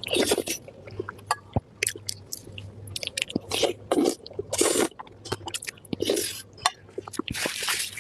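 Close-miked chewing of spicy pork belly: wet, smacking mouth sounds about once a second, with small sharp clicks between them.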